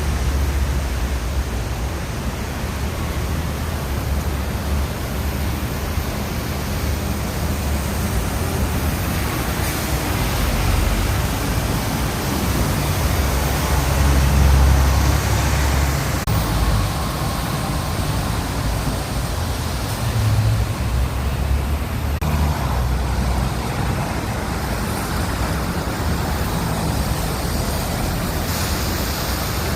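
Heavy rain falling on a city street, a steady hiss, with the low rumble of traffic passing underneath that swells briefly about halfway through.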